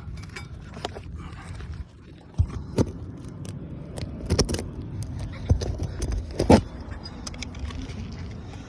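Metal tool clinking and scraping on asphalt roof shingles as old roofing nails are pried out, with a handful of sharp knocks in the middle.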